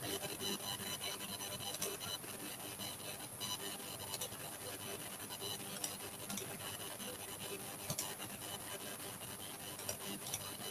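Faint steady hiss with a thin high whine, with light rubbing and scattered soft clicks over it, typical of a stylus or mouse being worked on a desk at a computer.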